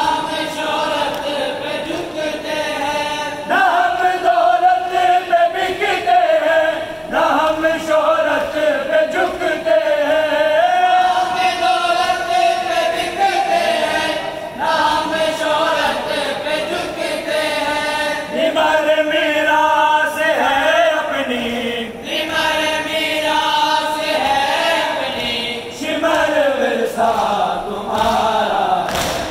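Mourning lament for Imam Husayn chanted in long, drawn-out melodic phrases, the voices holding and bending notes between short breaks.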